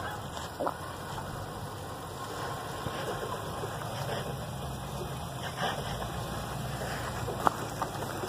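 Nissan Armada's V8 engine running low and steady while the SUV crawls slowly over a dirt mound. A few short sharp clicks sit on top of it, the loudest one near the end.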